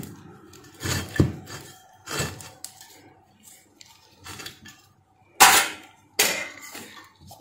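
Ceramic heating-element plate of an electric stove heater being handled and set onto its metal stove body: a series of clinks and knocks, then two longer, louder clatters about two-thirds of the way through.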